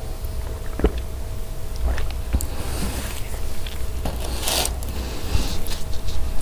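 Close-miked handling sounds at a plastic tray: a sharp knock a little under a second in, scattered light clicks and scrapes, and a brief rustle of a paper tissue in the hand about four and a half seconds in, over a steady faint hum.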